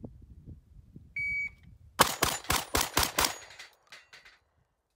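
A shot timer's start beep, then a Dissident Arms shotgun fired six times in quick succession, about 1.25 seconds from first shot to last, at a steel plate rack, with a few fainter knocks after the last shot.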